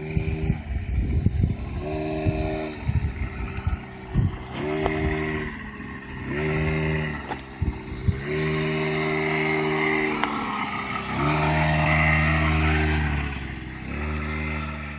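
Eton Viper Jr youth ATV's 40cc two-stroke engine, throttle opened and let off again and again: about seven bursts of revving, the longest near the middle, dropping back toward idle between them. Low rumbling thumps in the first few seconds.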